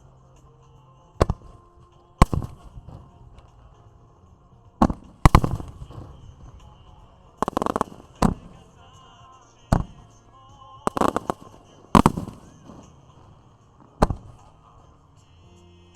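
Aerial fireworks shells bursting: about a dozen sharp bangs with echoing tails, some in quick clusters, a second or two apart, over faint background music.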